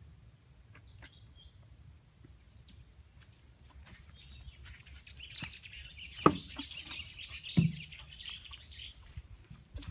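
Birds chirping in a dense high twitter for a few seconds. Over it come a few dull thuds of bare footsteps on the boards of a wooden footbridge, the two loudest about a second and a half apart.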